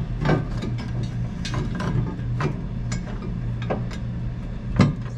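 Hand ratchet clicking in irregular strokes as bolts are run in to attach a steel frame section, over a steady low hum.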